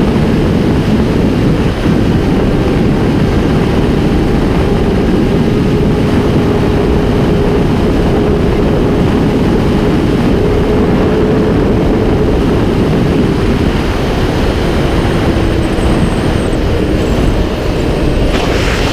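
Onboard sound of a Honda CBR1000RR's inline-four cruising at steady highway speed: wind rushing over the microphone, with the engine running underneath and its note dropping slightly a few seconds before the end.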